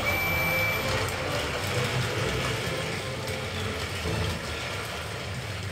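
Motorised Thomas & Friends All Engines Go toy engines running along plastic track, their small battery motors and plastic gears giving a steady whir.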